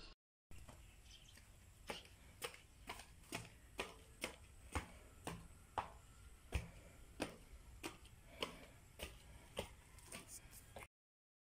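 Footsteps of sandals on a concrete floor, a sharp step about every half second. The sound starts half a second in and cuts off abruptly near the end.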